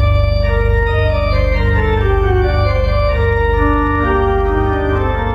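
Pipe organ playing: a deep sustained bass note held under a moving line of held melody notes and chords.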